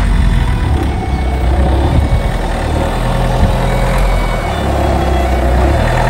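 Citroën Jumpy van's engine running at low speed as the van drives slowly over grass and pulls up close by.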